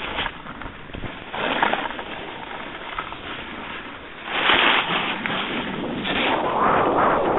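Rushing wind on the microphone and snow hissing under edges during a fast descent down a ski slope, swelling louder three times: about a second and a half in, around the middle, and near the end.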